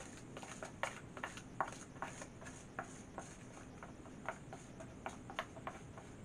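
Wet plaster of Paris being scraped out of a plastic mixing container: a run of short, irregular scraping clicks, two or three a second.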